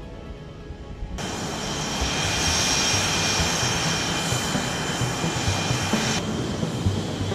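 Boeing F/A-18 Hornet jet engines running on the ground: a steady high whine over a rushing roar. It starts suddenly about a second in, and the whine drops away about six seconds in.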